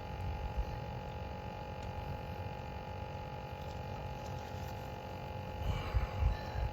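Steady electrical-sounding hum with a low, uneven rumble beneath it, and a short rustle of handling about six seconds in.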